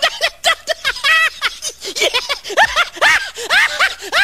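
High-pitched giggling: a quick, unbroken run of short squeaky notes, several a second, each rising and falling in pitch.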